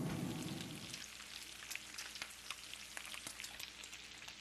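Bacon frying in a cast-iron skillet: a steady sizzle with many scattered crackling pops. A low rumble fades out over the first second.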